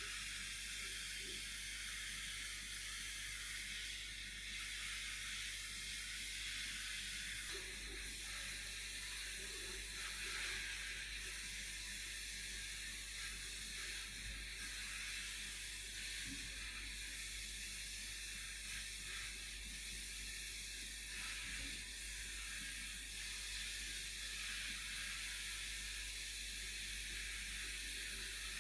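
Abrasive blast cabinet in use: a steady hiss of compressed air and grit blasting rust off the tank and burner of an old blowtorch, with a low hum underneath.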